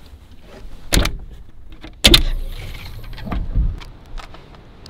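Two sharp clunks about a second apart, the latches of a pickup truck's camper shell rear hatch being opened from inside, followed by softer knocks and thuds as someone climbs out of the truck bed.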